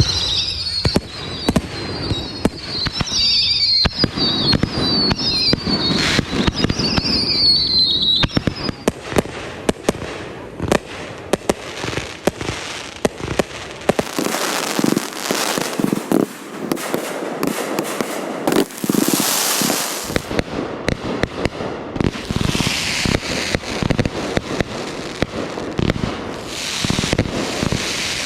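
Fireworks going off in dense, rapid volleys of sharp bangs and crackling from aerial shells and multi-shot cakes, with several falling whistles over the first several seconds.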